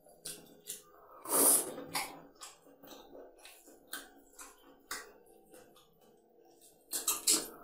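Rice and fish curry being mixed by hand on a plate: wet squishing and fingers clicking against the plate, with mouth sounds of eating. A short loud rush of breath-like noise comes about a second and a half in, and a quick cluster of clicks near the end.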